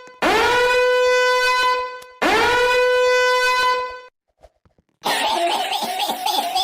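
A horn-like sound effect blown twice, each blast a steady tone lasting about two seconds that slides up in pitch as it starts. After a short gap, a different wavering, buzzy sound effect plays for about two seconds near the end.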